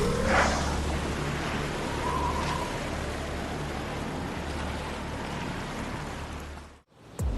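Open-water waves and wind noise with a low, steady boat engine hum, cut off abruptly near the end.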